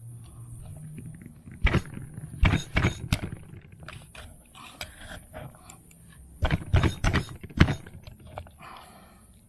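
Chef's knife chopping blue crabs in half on a wooden cutting board: a few sharp knocks as the blade goes through the shell and hits the board, in two bunches about two to three seconds in and again around seven seconds, over a low steady hum.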